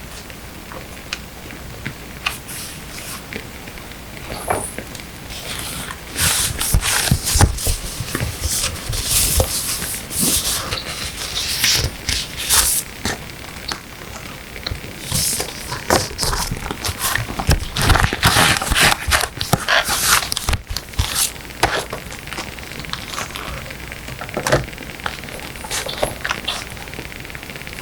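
Paper and sticker sheets handled close to the microphone, rustling and crinkling, busiest from about six seconds in until about twenty-one seconds. Beneath it runs a quieter bed of small crackles from a wood fire.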